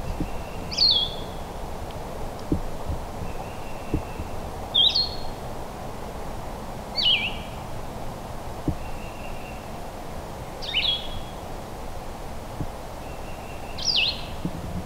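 A songbird singing the same short phrase five times, a few seconds apart: a steady high whistled note, then a quick slurred note that jumps higher and drops back. Underneath are a steady woodland hiss and a few faint low knocks.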